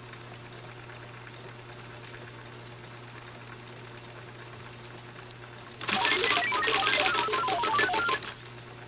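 Computer text-display sound effect: a rapid clicking chatter mixed with short beeps jumping about in pitch, lasting about two and a half seconds and starting about six seconds in. Before it there is only a faint steady hum.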